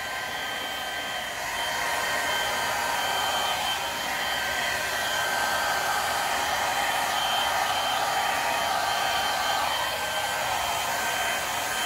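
Handheld hair dryer blowing steadily: a rushing airflow with a thin steady whine over it, getting slightly louder about a second and a half in. The air is pushing wet poured paint across a canvas.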